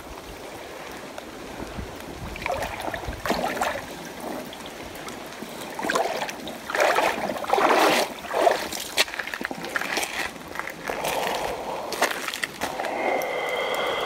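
Feet wading through a shallow stream, sloshing and splashing in irregular bursts over the steady rush of flowing water.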